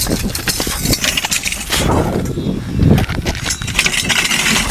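A heavy steel gun safe being heaved upright by several men on a concrete pad: scraping, knocks and clatter as the steel body tips and settles onto its base.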